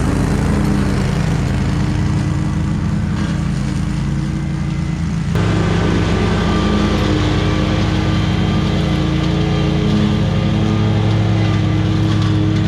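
Small petrol engine running steadily at working speed, cutting tall grass; it gets louder suddenly about five seconds in.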